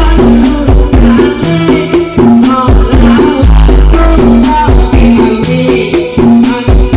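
Loud DJ dance music played through a large carnival sound system during a sound check, with heavy repeating bass hits and a rattling, tambourine-like percussion line.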